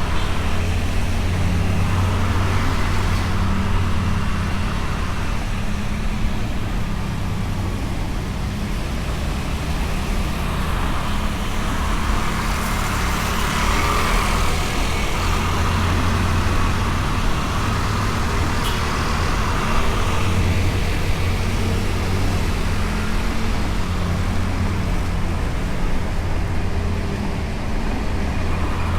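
A Honda Beat scooter's single-cylinder engine running steadily underway, with road and traffic noise around it.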